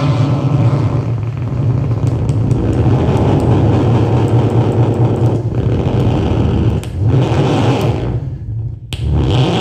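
A loud, rough, continuous drone from an amplified instrument, with a heavy low hum under a noisy upper layer. It thins out about eight seconds in, cuts almost to nothing for an instant, then comes back.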